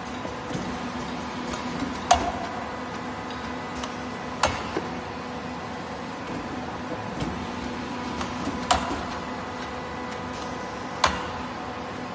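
Automatic diamond-segment cold press machine running: a steady mechanical hum, with four sharp clacks a few seconds apart as the press cycles.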